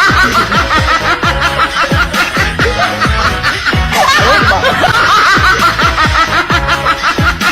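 Upbeat electronic background music with a steady kick-drum beat, with a rapid chuckling laugh sound repeated over it.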